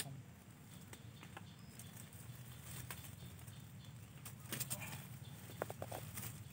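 Hands digging into soil and pulling at dry grass stems and leaf litter, giving irregular rustling and crackling with a few sharp clicks, busiest near the end.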